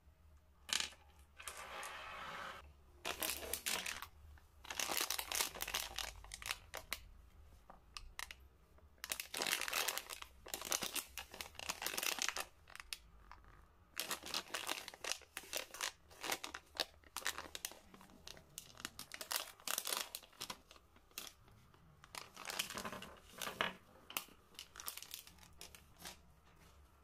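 Plastic wrapper of a bag of Cadbury Dairy Milk mini eggs crinkling and tearing as it is handled and opened, in repeated short bursts of rustle with brief pauses between.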